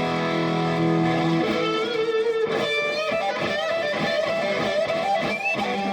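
Gibson Les Paul Custom electric guitar with Custombucker humbucking pickups, amplified: a held chord rings for about a second and a half, then a single-note lead line follows, with string bends and vibrato.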